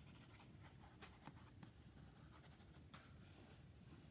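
Faint scratching of a water-soluble graphite pencil, used dry, drawn across sketchbook paper in short, irregular strokes.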